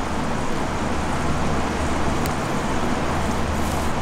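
Steady background noise: an even rumble and hiss with a low hum underneath, unchanging throughout.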